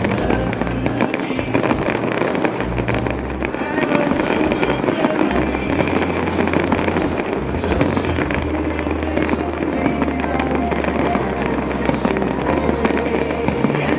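Fireworks display: a dense, continuous crackle of many small bursts, with music playing underneath.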